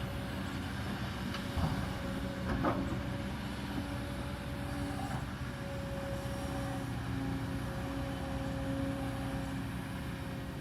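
Kobelco 220 excavator's diesel engine running steadily with a held whine over it. Two sharp knocks come about a second apart near the start.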